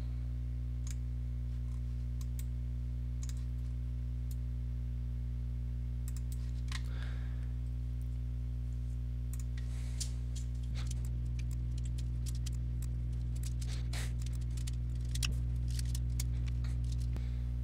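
A steady low hum with scattered faint clicks of a computer mouse being used to select parts and edges.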